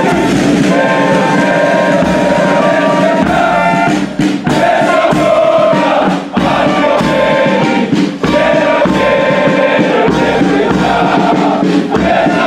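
Military brass band playing, with held notes and a few brief pauses between phrases.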